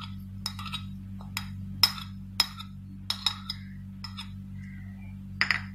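A steel spoon tapping and clinking against a small bowl as chopped coriander leaves are scraped out into a bowl of mashed boiled potato: about a dozen sharp, irregular clinks, over a steady low hum.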